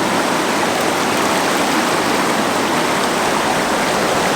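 River current rushing steadily: a loud, even wash of flowing water.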